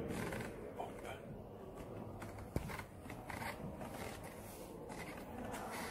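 Soft rustling and scraping of leather high-heeled boots working the pedals of an old fire truck's cab, with one sharp click about two and a half seconds in.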